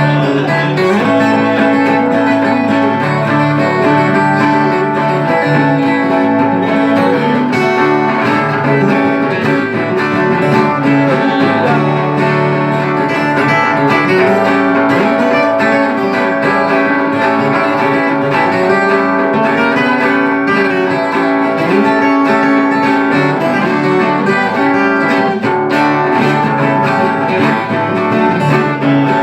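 Violão (acoustic guitar) and viola caipira playing an instrumental passage together, plucked strings with a bright, steady accompaniment.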